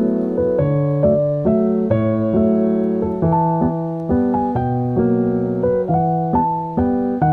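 Background music: a piano or electric piano playing a steady run of chords that change about every half second.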